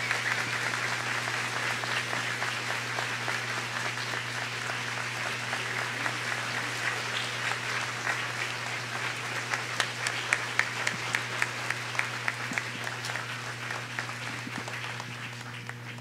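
Congregation applauding, with a run of sharp, louder claps from a few nearby hands in the second half, and the applause dying away near the end. A steady low electrical hum runs underneath.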